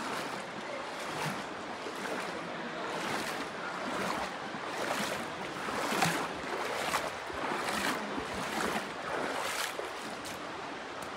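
Steady rush of the shallow Virgin River flowing through a narrow canyon, with water running down the rock walls, and short scuffs recurring about once a second.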